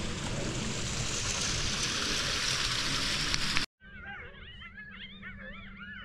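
Rainwater running down a slickrock canyon in a steady rush, cut off abruptly a little over halfway through by a chorus of coyotes yipping and howling, many rising-and-falling calls overlapping.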